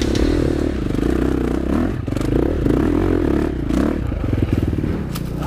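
KTM 350 SX-F single-cylinder four-stroke dirt bike engine heard on board while riding, its revs rising and falling, easing down to slow, distinct firing pulses about four seconds in. Knocks and clatter from the bike as it runs over rough ground.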